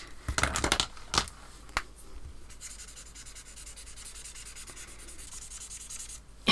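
A Faber-Castell alcohol marker's nib rubbing back and forth on paper, colouring in a dark brown swatch, heard as a faint, steady scratching. In the first two seconds there are a few sharp clicks and knocks as markers are picked up and set down on the desk.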